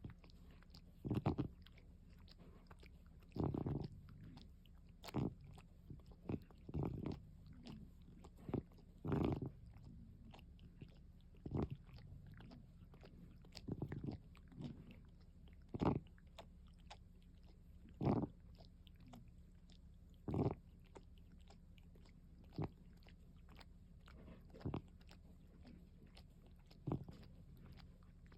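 An asthmatic cat's noisy, rasping breaths close to the microphone: short scratchy sounds, bunched irregularly at first and then settling to about one every two seconds. The noise itself is the sign of the cat's asthma.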